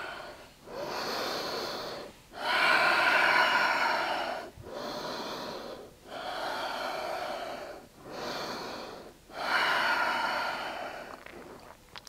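A woman's loud, slow breathing while holding a yoga pose: about six drawn-out breaths in and out, each one and a half to two seconds long, with short pauses between them.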